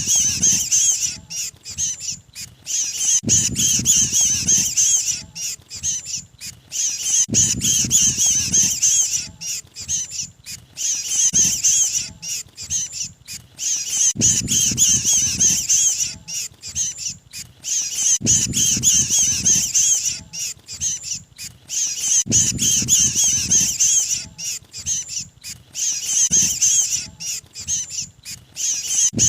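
Looped lure recording of a mantenan bird's distress calls, the 'pinched bird' sound: rapid, harsh, high chattering squawks in bouts that repeat about every four seconds, each bout with a low rumbling burst underneath.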